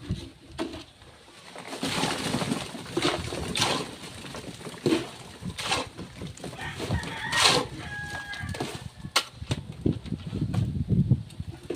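A rooster crowing, among irregular rushes of noise.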